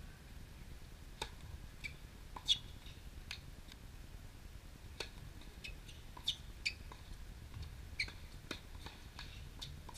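Tennis ball struck by rackets and bouncing on a hard court during a rally: thin, sharp pops a second or so apart, starting with a serve about a second in. Short bird chirps mixed in.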